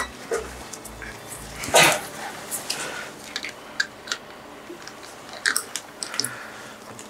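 A scattered series of sharp clicks and taps, the loudest about two seconds in, with a pulsing low hum that stops at that loud click.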